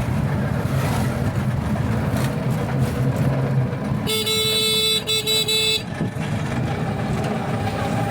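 A motor vehicle's engine running steadily, with a horn honking in three or four short blasts about four seconds in, lasting under two seconds.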